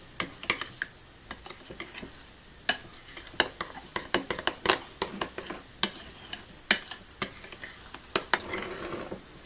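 A spoon stirring thick semolina idli batter in a bowl, with quick irregular clicks and taps against the bowl's side as the fruit salt is mixed in.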